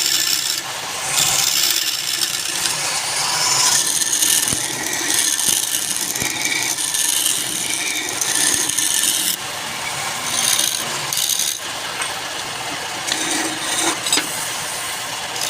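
Wood being worked as it spins on a lathe: a rough, hissing scrape that swells and fades.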